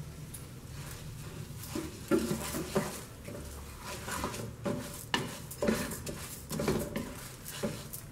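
Wooden spoon stirring and scraping raw rice grains through melted butter in a ceramic-coated frying pan, coating the rice in the butter. The repeated, irregular scraping strokes start about two seconds in.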